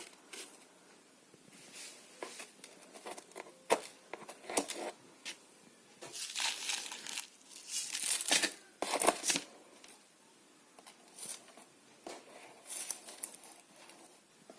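Hands potting seedlings into a hydroponic growing kit: intermittent crinkly rustling with a few light clicks and knocks. The loudest rustles come about six and eight to nine seconds in.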